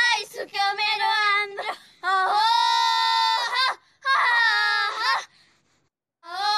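High young female voices singing a traditional Nepali threshing song in long, drawn-out, wavering notes. Three phrases are separated by short breaks, then a brief near-silent pause, and the singing starts again near the end.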